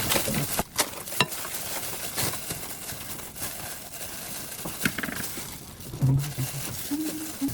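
Kitchen work noises: a few sharp clicks and knocks in the first second or so and another a little before five seconds, with a brief low murmur of voice near the end.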